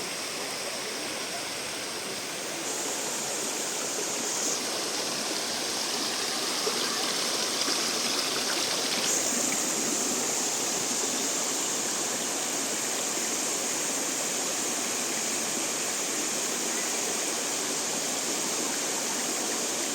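Salza waterfall, water rushing steadily, getting a little louder over the first several seconds.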